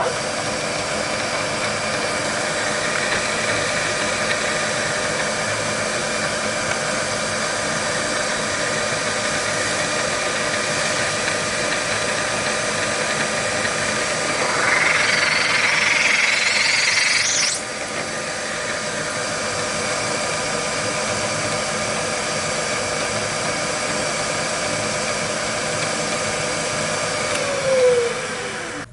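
Vertical milling machine spindle running with a steady motor and drive whine. About fourteen seconds in, the cutter bites into the sphere for about three seconds, a louder, higher cutting sound that stops suddenly. Near the end the spindle is switched off and its whine falls in pitch as it spins down.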